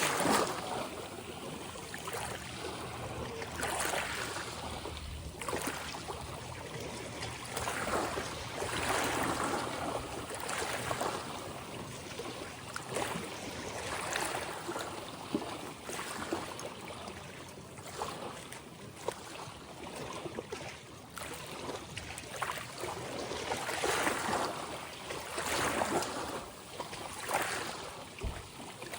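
Ocean waves washing in, the rush of water swelling and falling away every few seconds.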